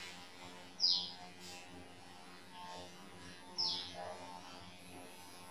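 A bird giving short, falling chirps, two of them about three seconds apart, over a faint steady hum.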